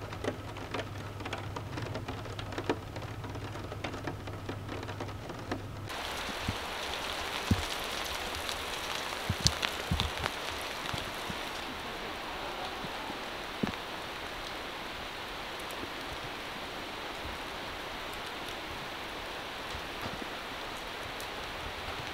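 Steady rain falling through a conifer forest, an even patter with scattered louder drips landing close by. About six seconds in the rain sound turns fuller and brighter.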